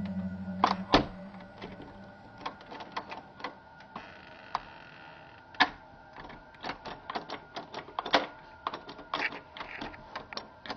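Metal doorknob on a closet door turning and rattling, its latch giving off irregular clicks, the loudest about a second in.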